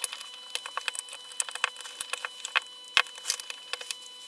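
Irregular small clicks and taps of plastic parts being handled, as a cordless drill battery pack's casing is fitted back together, over a faint steady electrical whine.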